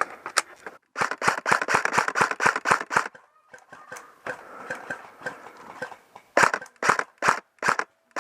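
Airsoft rifle fire: a rapid string of sharp shots for about two seconds, a few scattered shots after, then several single, well-spaced shots near the end.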